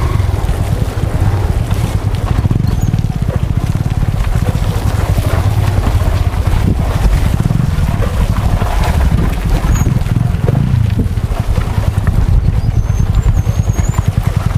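Motorcycle engine running steadily as the bike is ridden down a rough off-road trail, with wind rumble on the microphone.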